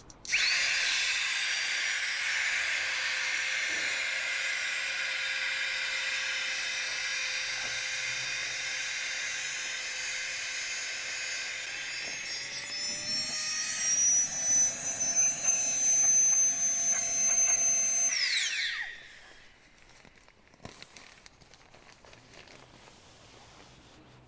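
Small battery-powered mini air pump running steadily as it inflates a sleeping mat; its whine rises in pitch about halfway through, then it winds down and stops after about eighteen seconds. Faint rustling and clicks of the mat being handled follow.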